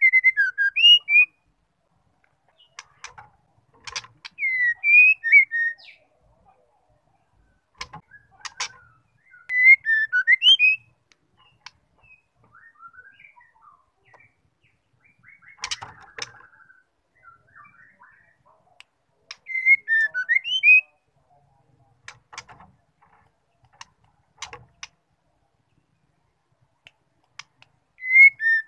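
Female white-rumped shama (murai batu betina) calling: short bursts of quick whistled notes, several seconds apart, with scattered sharp dry ticks in between. These are the female calls used to provoke male shamas into singing.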